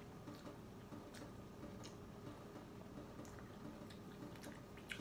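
Quiet room tone: a steady low hum with a few faint, scattered light clicks.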